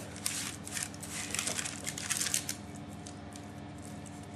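Plastic spatula scraping and pressing a thick leek batter across baking paper in a pan: a run of short, soft scraping and crinkling strokes, busiest in the first two and a half seconds and sparser after.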